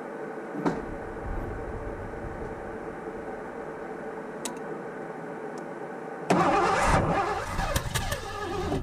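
Starter cranking the 1984 Ford LTD Crown Victoria's CFI V8, beginning suddenly about six seconds in and going on for roughly two and a half seconds without the engine settling into running. The car has an unsolved fuel-delivery no-start.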